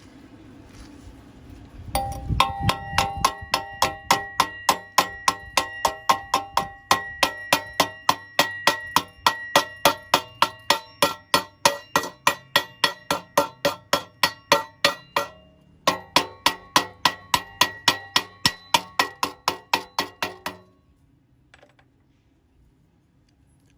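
Rapid, even hammer blows on metal, about three a second, each one ringing. The blows pause briefly partway through, then stop near the end.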